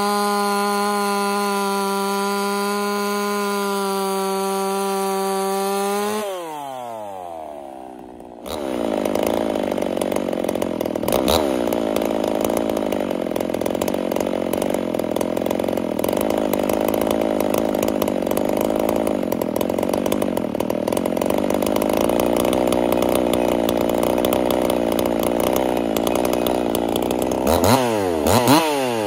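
Hybrid 50cc race chainsaw, a Husqvarna 50 with a Partner 5000 top end, running flat out in a log cut. Its pitch falls away as it comes out of the wood about six seconds in. About two seconds later it is abruptly back at full throttle, cutting steadily, with a few quick revs up and down near the end.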